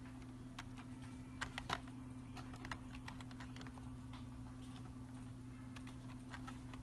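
Keys being pressed on a Maxin RGB membrane keyboard: scattered, irregular clicks, two louder ones about a second and a half in, over a steady low hum.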